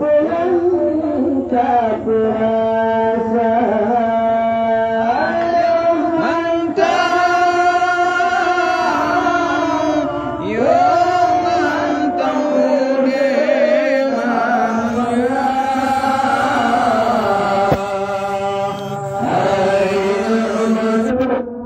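A man's voice singing an Acehnese qasidah chant, holding long, ornamented notes that slide and waver between phrases.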